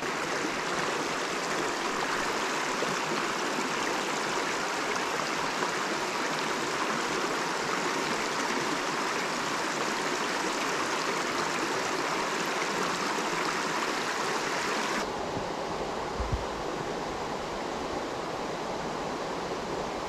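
Mountain brook running, a steady rush of flowing water. About fifteen seconds in it turns softer and duller, with a brief low bump shortly after.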